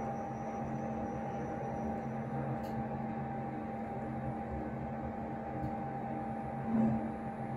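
Thyssenkrupp passenger elevator heard from inside the car on its way down: a steady machinery hum with a thin constant whine, and a brief louder hum near the end as the car comes to its stop.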